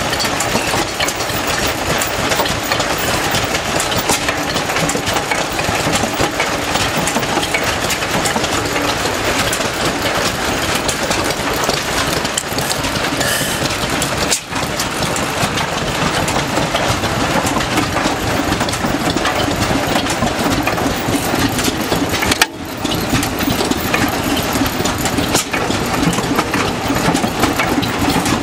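Vintage stationary engines running at a steady idle, a continuous mechanical clatter of valve gear, governor and exhaust beats. The sound briefly drops out twice.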